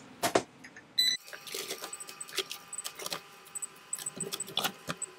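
A handheld barcode scanner beeps once about a second in as a part is scanned. Around it is the clatter and rustle of boxed phone parts being picked up and handled.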